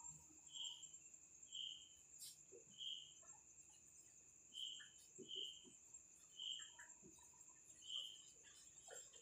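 Near silence with faint crickets: a steady high-pitched trill under a short chirp that repeats about once a second.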